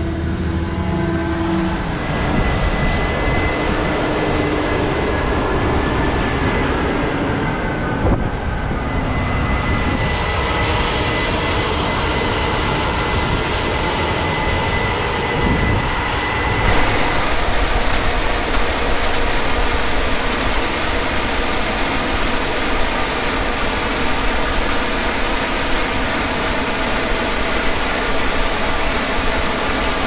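Case IH 8250 combine harvesters running steadily: a loud machine drone with a thin high whine through the first half. About 17 seconds in, the sound changes abruptly to a brighter, hissier noise.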